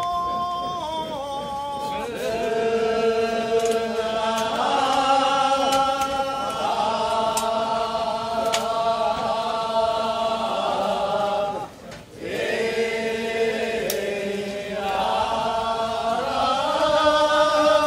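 Kiyari, the traditional Edo work chant, sung by a group of voices in long, drawn-out notes that slide between pitches. A lone voice holds a note at first, more voices come in about two seconds in, and there is a brief break near twelve seconds.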